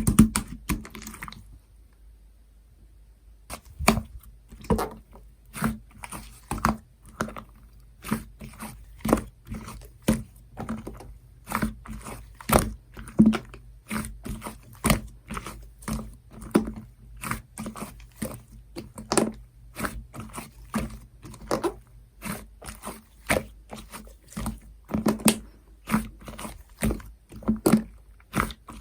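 Slime being pressed and worked by hand, giving short sticky pops and clicks about two a second, after a brief pause near the start.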